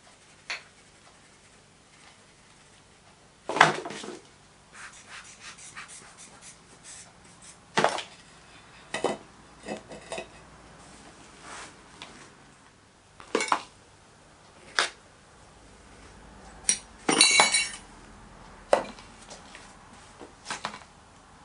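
Scattered sharp knocks and clinks of a sand-casting moulding flask and metal hand tools being handled and set down while a mould is made up, with a short rattling cluster near the end.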